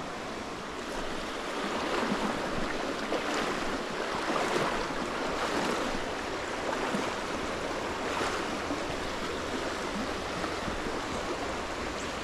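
Stream water rushing and babbling steadily over rocks, swelling a little louder for a few seconds in the middle.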